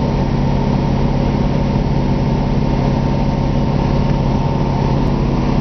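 1966 Ford Thunderbird's V8 idling steadily while it warms up after a cold start.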